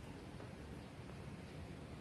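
Faint steady background noise, with no distinct sound standing out.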